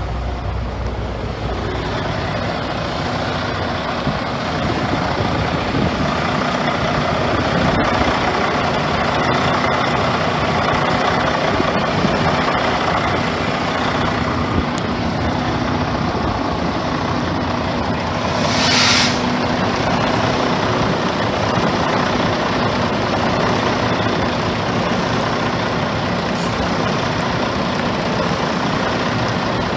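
Diesel engine of a 2014 Freightliner road tractor running steadily at idle, with a short, loud hiss of escaping air from the truck's air system about two-thirds of the way through.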